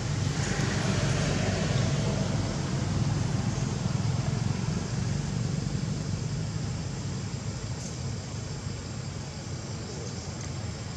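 Steady low rumble of motor-vehicle noise, easing a little over the last few seconds.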